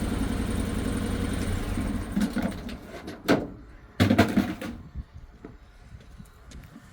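A drain jetter's engine runs steadily, then dies away after about two and a half seconds. Two sudden clattering knocks follow, about three and four seconds in, then only small clicks.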